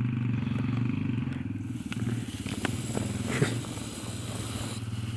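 Small dirt bike engine running steadily, growing somewhat quieter from about two seconds in as it moves off.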